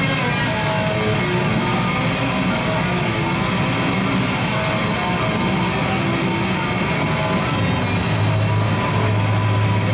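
Music with a guitar playing, in short held notes at changing pitches, over a steady low rumble.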